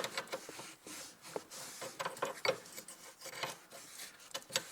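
A spanner working on the bolt of a rear brake hose connection as it is tightened: irregular light metallic clicks and scrapes of the tool against the fitting.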